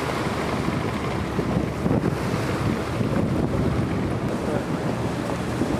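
Strong wind buffeting the microphone over the steady rush of choppy sea breaking along the hull of a three-masted barque under sail.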